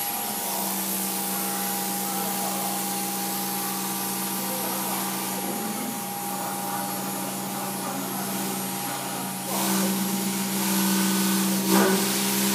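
CNC router spindle running with a steady pitched hum and a hiss as its long bit mills a foam block. The cutting gets louder about two-thirds of the way in, with a brief sharper peak near the end.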